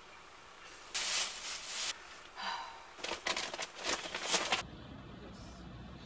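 Rustling, scraping and knocking of things being handled while rummaging through a storeroom. It comes in bursts: a long one, a short one, then a run of quick sharp noises that stops suddenly about four and a half seconds in.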